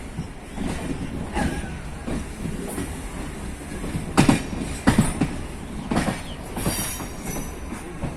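Train wheels rolling slowly over rail joints and points: a steady rumble with irregular clacks and knocks, the loudest about four and five seconds in, and a brief high-pitched wheel squeal near the end.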